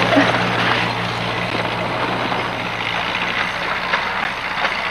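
Farm tractor engine running steadily close by, a low even drone.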